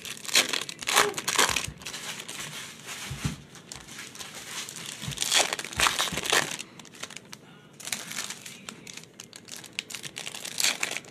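Foil baseball card pack wrappers crinkling and tearing as they are ripped open by hand, in irregular spells that come and go.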